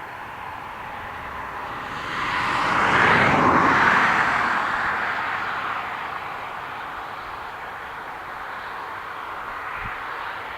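Jet engines of a Boeing 737-400, CFM56-3 turbofans, running as the aircraft passes close by: a rushing roar that swells quickly to a peak about three seconds in, then slowly fades away.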